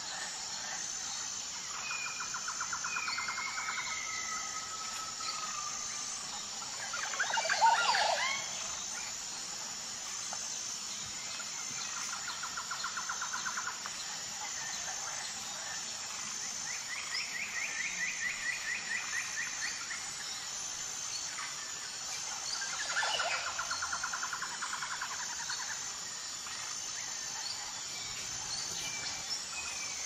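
Tropical jungle ambience: a steady high-pitched insect chorus with a regular pulsing beat, over which birds call in rapid trills every few seconds. The loudest call comes about seven to eight seconds in, sweeping up and down in pitch, with a weaker one about twenty-three seconds in.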